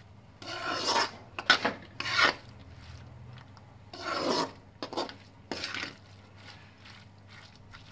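A spatula stirring sprouted fenugreek and tomato masala, scraping across the bottom of a black kadai in about six strokes, with short pauses between them.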